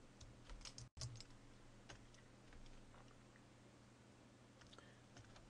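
Near silence: faint room hum with a few soft computer mouse clicks, about a second in and again near the end.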